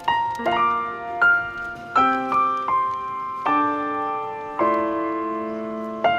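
Piano music: notes and chords struck about once a second, each left to ring.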